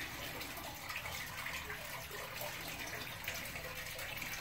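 Water running steadily, with a constant rushing and splashing.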